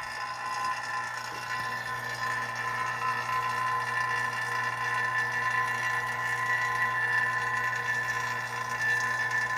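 A/C vacuum pump running steadily with a low hum and a constant whine, pulling a deep vacuum on a truck's air-conditioning system after repairs.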